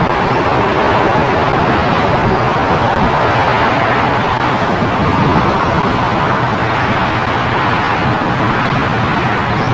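Four-engine jet airliner's engines giving a steady, loud rush of jet noise as the plane moves along the runway.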